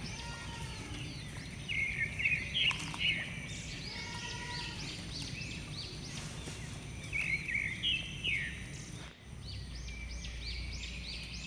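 Small birds chirping in quick repeated calls, in two bouts about two seconds and seven seconds in, with fainter chirps between, over a steady low hum.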